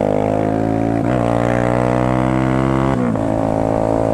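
Motorcycle engine pulling through the gears: the pitch climbs steadily, drops sharply at an upshift about a second in and again about three seconds in, then climbs again.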